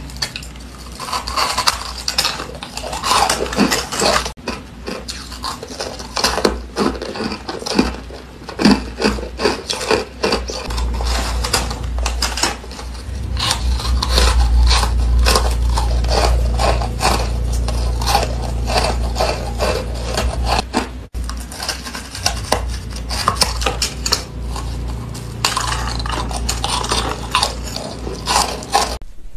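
Close-miked crunching as crumbly, snow-like white ice is bitten and chewed, many sharp crunches in quick succession with brief pauses.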